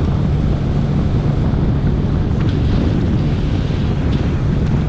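Small fishing boat underway at speed: steady outboard engine drone under heavy wind buffeting the microphone, with water rushing past the hull.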